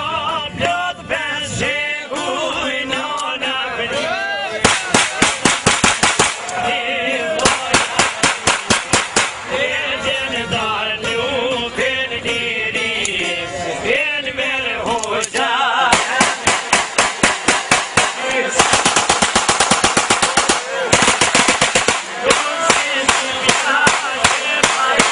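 A man sings an Albanian folk song with long, wavering held notes to plucked long-necked lutes. It is broken by several long bursts of rapid gunfire, about six shots a second, which are the loudest sound and start about four and a half seconds in and keep coming back.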